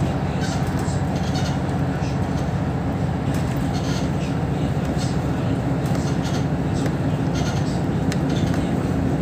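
Cabin noise of a Mercedes-Benz Citaro O530 city bus on the move: the diesel engine's steady drone with road noise and small rattles now and then.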